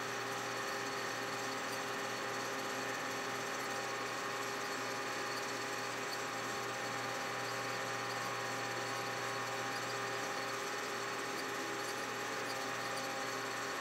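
Metal lathe running with a steady, even mechanical hum of several tones, with no distinct strokes.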